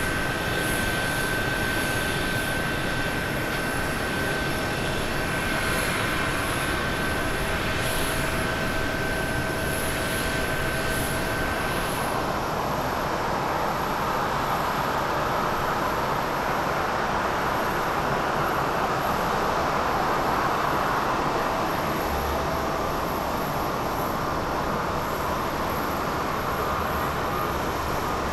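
Boeing 777 turbofan engines: first a climbing jet with a steady high whine over its engine noise, then, about twelve seconds in, a broader, even jet engine noise from a second 777 on the runway.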